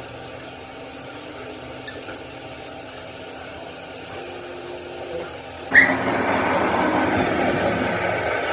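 Quiet steady background hum, then about two-thirds of the way in a truck engine starts suddenly and keeps running steadily.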